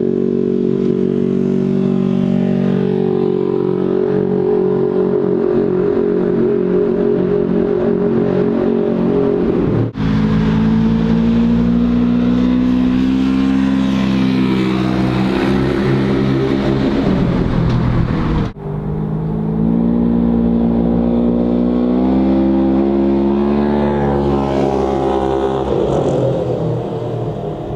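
Polaris RZR side-by-side's twin-cylinder engine running through an MBRP 304 stainless steel muffler, first at a steady speed and then with the pitch rising and falling as it is driven and revved. The sound drops out abruptly twice, about ten and eighteen seconds in, and fades away at the end.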